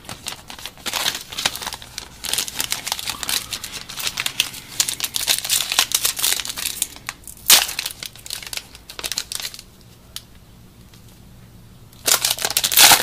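Foil trading-card pack wrapper being torn open and crinkled by hand, a dense crackling that runs for several seconds, with a sharp snap about halfway through. It goes quiet for a couple of seconds, then another burst of crinkling comes near the end.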